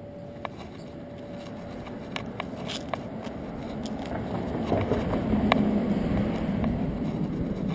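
Handling noise from a GoPro camera strapped to a walking dog: scattered clicks and scrapes from the harness mount, with a low rumble building over the last few seconds.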